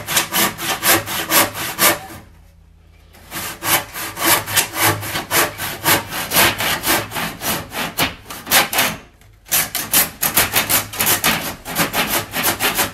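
Hand saw cutting through Huon Pine timber in quick, even back-and-forth strokes. The sawing stops for about a second about two seconds in and again briefly about nine seconds in, then goes on.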